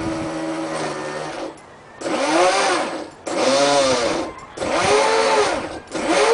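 Brushless electric motor of a fast electric RC boat, out of the water, running steadily and then revved up and down by its speed control again and again, each rev a whine that rises and falls in pitch, with short drops between.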